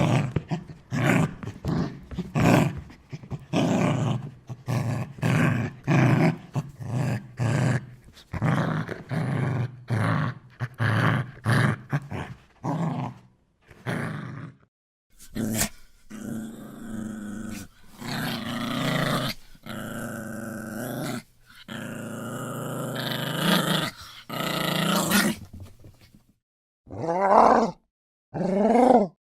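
A pack of dogs growling: short, rough growls in quick succession, about two a second at first, then longer drawn-out growls. After a brief silence near the end, two short growls bend up and down in pitch.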